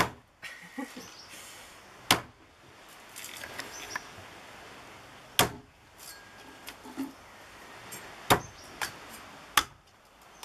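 A square-bladed machete chopping into the husk of a trimmed young coconut: about six sharp chops spaced one to three seconds apart, the last three closer together, as the top is hacked open to get at the coconut water.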